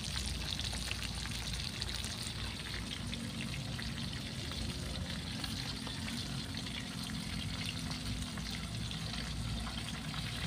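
Whole fish frying in hot oil in an aluminium wok: a steady sizzle with fine crackles.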